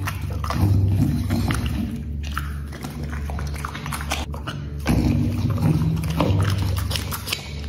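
A dog chewing and biting a piece of meat, a quick irregular run of wet smacks and clicks that thins out in the middle and picks up again about five seconds in.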